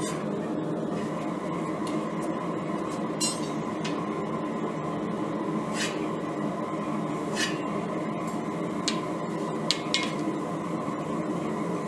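A steady drone with a faint high whine, under a handful of short, light metallic clinks of steel and tools being handled.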